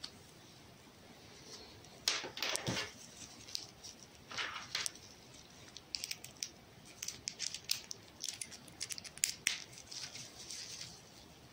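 Gloved hands handling a USB camera cable and OTG adapter: rustling of disposable gloves and light clicks and taps of the plastic and metal plugs. There is a louder rustle about two seconds in and a run of small clicks in the second half.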